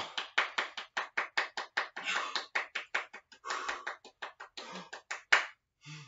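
A rapid, irregular run of short sharp clicks, about five a second, which stops shortly before the end.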